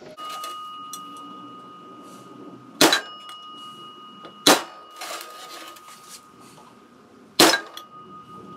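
A hammer striking a flathead screwdriver to stake the front pump bushing of a 47RE/48RE transmission pump: three sharp metallic taps spread over several seconds, with a thin metallic ring hanging on between them.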